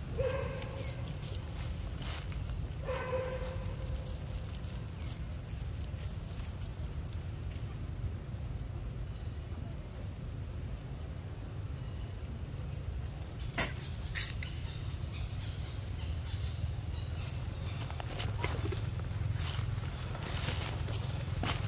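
A steady, finely pulsing high insect trill, over a low rumble. Two short calls come in the first three seconds, and a couple of faint clicks in the middle.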